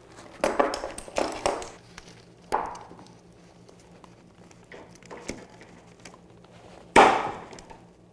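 A series of sharp knocks and clatters as the long glued rail boards are handled on the floor and a locking face clamp is set across the seam. The loudest is a single sharp knock about seven seconds in.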